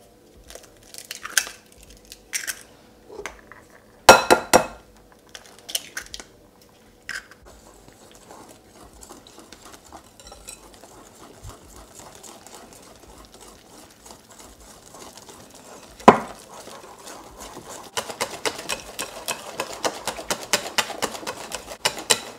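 A kitchen utensil clinking and knocking against a mixing bowl: first a few separate clinks, then one hard knock, then fast steady clicking as pancake batter of flour, milk and eggs is beaten in the bowl.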